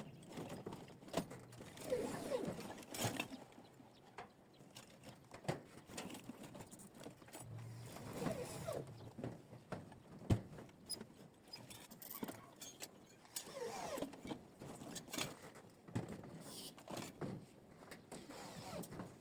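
Scattered clicks and knocks, irregular and some sharper than others, with faint voices in the background.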